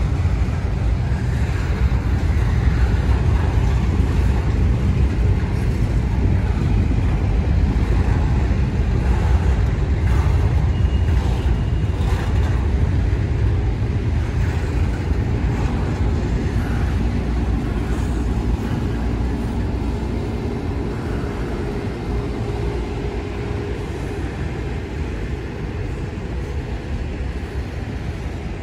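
Double-stack intermodal freight cars rolling past: a steady low rumble of steel wheels on the rails that slowly fades toward the end.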